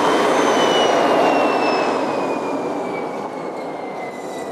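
Regenerative blower of a Ruwac Powerhouse Regen industrial vacuum winding down after being switched off: a rush of air with a high whine that falls steadily in pitch as it grows quieter.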